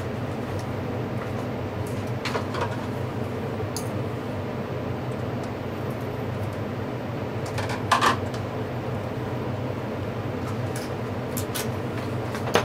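A steady mechanical hum, with a few small clicks and taps as parts inside an opened iPad are handled; a short cluster of clicks about eight seconds in is the loudest.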